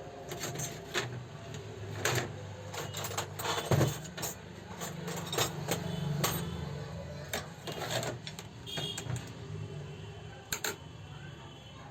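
Irregular metallic clicks and knocks of tools and small parts being handled on an old Revo 81-3 overlock sewing machine under repair, over a steady low hum.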